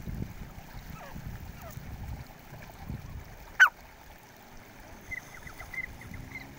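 Grey francolin giving one loud, sharp call about halfway through, followed near the end by a row of faint, short high notes over a low background rumble.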